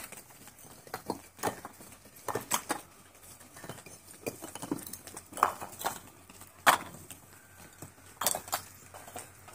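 Fired clay bricks clinking and knocking against each other and against steel brick-carrying clamps as they are loaded and carried. The clinks come irregularly, a dozen or so, the sharpest about two-thirds of the way through.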